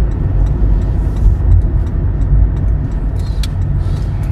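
Inside a moving car's cabin: a steady low rumble of engine and tyre noise while driving slowly along a residential street.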